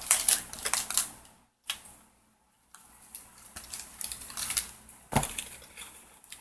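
Packaging of a mailed comic-book package being handled and opened: irregular crackling and clicking, with one sharp thump about five seconds in.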